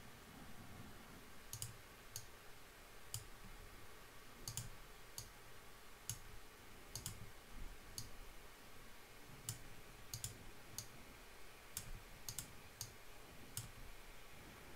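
Faint, irregular clicks of a computer mouse and keyboard, roughly one a second, some coming in quick pairs.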